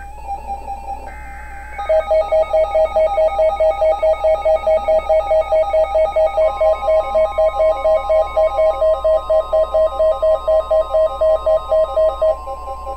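Emergency Alert System flash flood warning alert tones: a brief warbling data burst about a second in, then a loud electronic alarm tone pulsing about four times a second, joined about halfway through by a steady higher tone.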